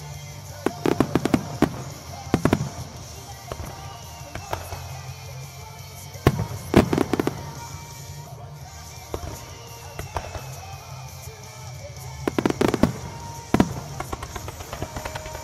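Fireworks going off in clusters of sharp bangs and cracks: one group about a second in, another about six seconds in, and a third near the end, with music playing underneath.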